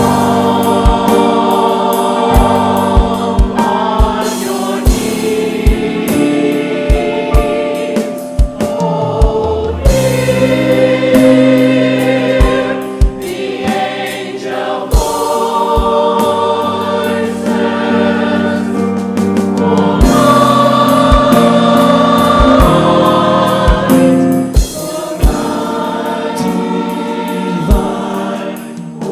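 Church choir singing with instrumental accompaniment, over a regular low beat.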